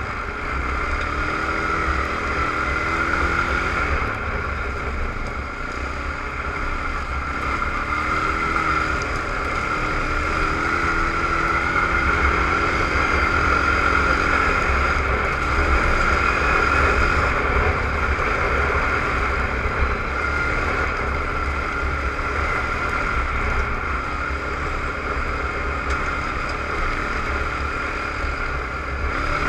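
Suzuki ATV engine running steadily under way on a dirt trail, its pitch wandering up and down a little with the throttle, over a steady whine and a heavy low rumble.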